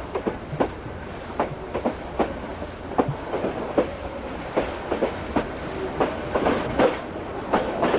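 Train wheels clattering over rail joints as a passenger train runs along the track, heard from on board: a steady low rumble with irregular knocks throughout.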